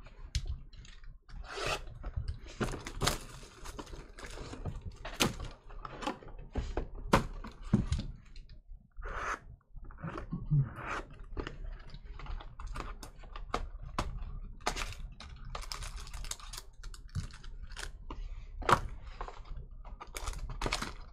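Cardboard box and foil card packs being opened and handled: an irregular run of clicks, taps and rustles as the box is cracked open and the packs are pulled out and torn.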